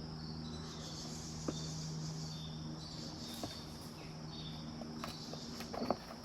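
Insects chirping steadily over a low steady hum, with a few scattered footsteps on rock that come more often near the end.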